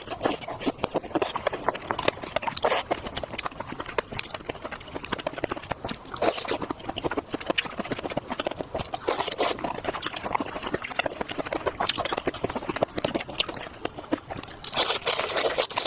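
Close-miked eating sounds of seafood being chewed: a dense run of wet clicks and smacks, with several louder bursts.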